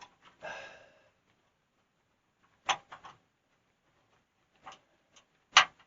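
A few sharp clicks and knocks of parts being handled while working blind under a lathe, in two small groups, the loudest knock just before the end.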